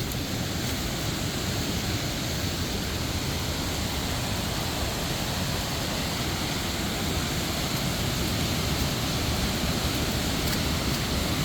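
Steady rushing of a waterfall: an even, unbroken wash of noise from low to high pitches.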